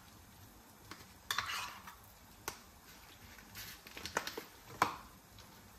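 A table knife scraping and clicking against a small cup as spinach and cream-cheese filling is scooped out, with a longer scrape about a second and a half in and a few light clicks.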